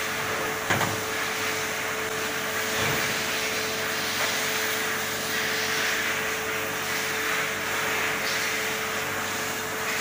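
Vacuum-chamber helium leak test machine running: a steady hiss with a steady hum. A single knock about a second in.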